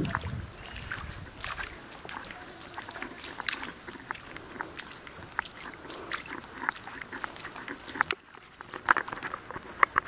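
Footsteps wading through a shallow, sandy stream: small irregular splashes and sloshes of water, with a low wind rumble on the microphone that dies away in the first couple of seconds.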